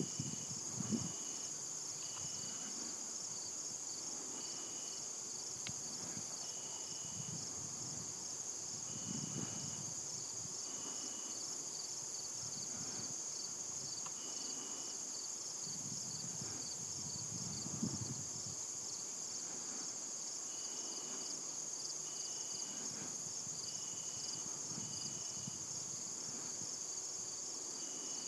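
Insects in the grass trilling in a steady, high, finely pulsing chorus, with a shorter chirp repeating every second or two.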